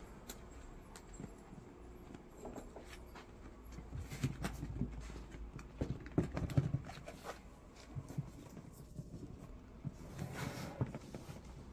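Handling noise of an inflatable flood barrier being pushed and worked into an opening: irregular knocks, low thumps and rubbing, thickest a few seconds in, with a short rustle near the end.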